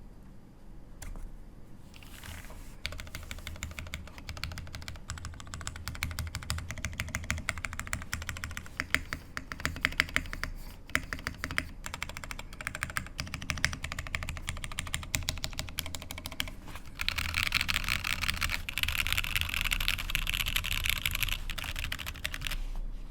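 Typing on a CherryB Neo87 mechanical keyboard with broken-in, lubed Cherry MX Black linear switches on an aluminium plate, no case foam: a few separate key clacks, then a steady stream of rapid keystrokes that turns louder and denser in the last several seconds.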